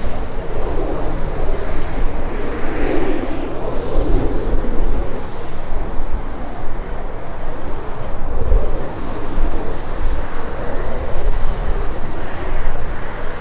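Twin-engine jet airliner at takeoff power: a continuous jet roar as it accelerates down the runway, lifts off and climbs overhead. Gusts of wind rumble on the microphone.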